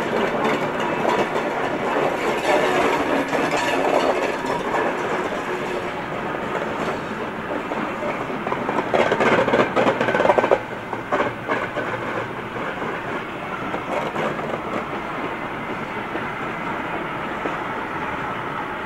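Passenger coaches rolling past close by, their wheels rumbling and clattering on the rails. The sound swells about nine seconds in, drops sharply a second or so later, then fades gradually as the coaches keep passing.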